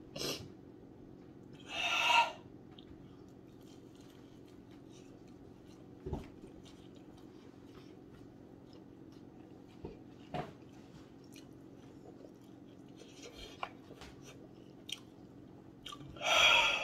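A man chewing a chicken wing, with faint mouth clicks, and two loud hissing breaths puffed out through the mouth, about two seconds in and near the end, against the burn of the extremely spicy wings.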